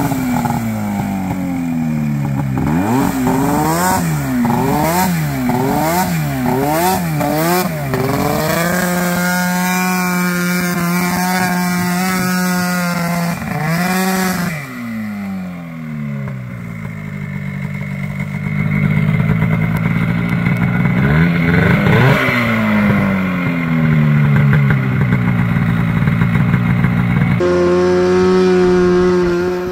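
Honda Pilot off-road buggy engine revving hard again and again, its pitch climbing and dropping several times in quick succession. It is then held at a steady high pitch for several seconds. Later the engine winds down and builds up again, and near the end it runs at a steady pitch.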